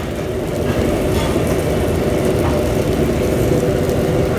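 A steady low rumble of noise that holds level throughout.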